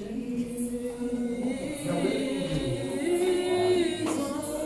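A church congregation singing a worship song together, voices holding long notes that grow fuller after about two seconds.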